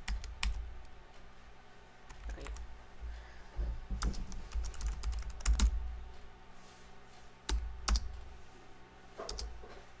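Typing on a Freewrite Traveler's low-profile keyboard: irregular key taps, some with a dull thump, bunched most densely in the middle and in a pair a little later.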